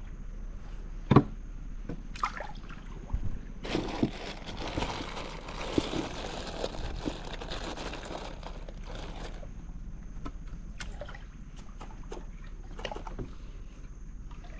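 A wooden canoe being paddled: the paddle dips and splashes in the water, and water drips and trickles off it. There are a few sharp knocks against the hull in the first seconds, and the splashing is heaviest in the middle.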